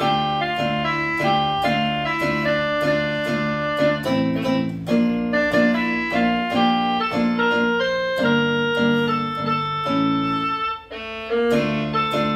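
Portable electronic keyboard played with a piano voice: a melody over repeated chords, with a short break in the playing near the end.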